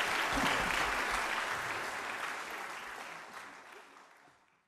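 Audience applauding, fading out to silence near the end.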